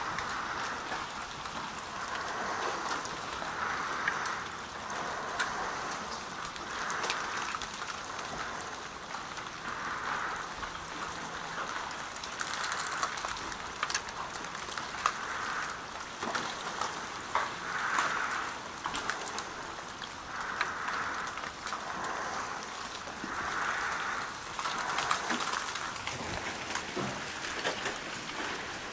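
Meltwater dripping from ice-glazed trees and icicles as the ice thaws: a steady rain-like patter with many scattered sharp ticks of single drops.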